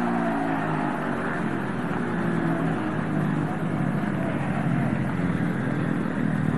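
Two speedway motorcycles' single-cylinder engines running on the track. Their pitch falls about a second in, then holds fairly steady with a rapid flutter.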